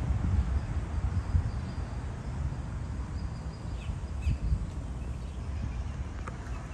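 Outdoor ambience: a steady low rumble, with a few faint bird chirps about four seconds in.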